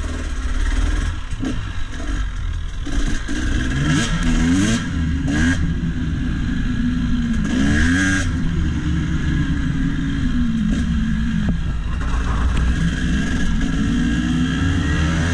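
KTM dirt bike's single-cylinder engine pulling hard through the gears, its pitch rising with each run-up a few times over, with wind buffeting the helmet-mounted microphone. The engine is running a newly fitted cylinder head and a flashed ECU with the MX tune.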